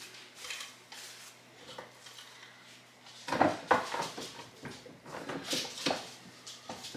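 Wooden tortilla press being worked by hand: quiet handling for the first three seconds, then a run of wooden knocks and clatters from the handle and plates as masa is pressed, loudest from a little after three seconds in.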